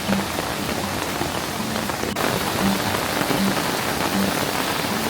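Waterfall: water falling and splashing steadily into a rocky stream, a dense even rush.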